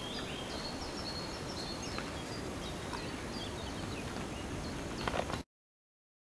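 Outdoor background of steady hiss with small birds chirping in short high notes. All sound cuts off abruptly about five and a half seconds in.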